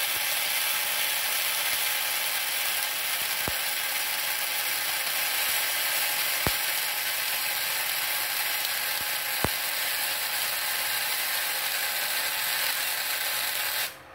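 Gasless flux-core MIG welding arc from an inverter MIG welder burning steadily with a dense hiss, broken by three sharp pops, and cutting off abruptly near the end. The leads are on the correct polarity for gasless wire, torch negative and earth clamp positive, the setting that gives a smooth, sound weld.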